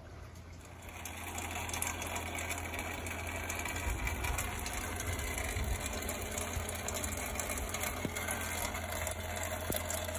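Steady rain falling, a dense even hiss that gets louder about a second in, over a low steady hum.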